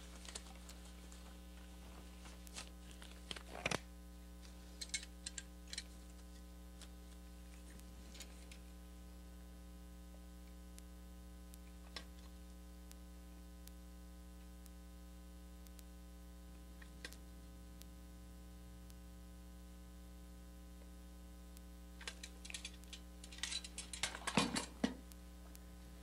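Steady electrical mains hum, with sparse faint rustles and clicks from latex gloves being pulled on and a hand-held caulk tube being handled. A brief flurry of handling noise comes near the end.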